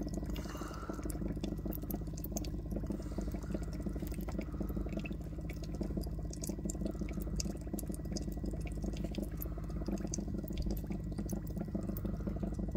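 Air bubbler bubbling steadily through a liquid bath, many small bubble pops over a low, continuous hum.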